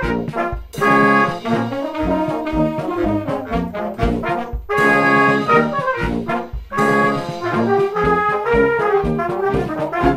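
Wind band playing: trombones, trumpets and horns lead, with saxophones, clarinets and flutes. The full band stops for short breaks three times.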